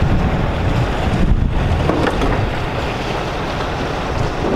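Wind buffeting the microphone over the rush of water along the hull of a sailing yacht under way, steady throughout.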